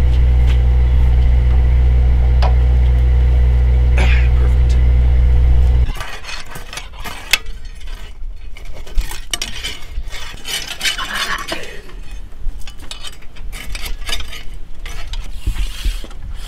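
A steady low engine-like drone that cuts off abruptly about six seconds in. It gives way to irregular metallic clinks, taps and scrapes as gloved hands work at the cab and smokebox of a 7.5-inch gauge live steam locomotive.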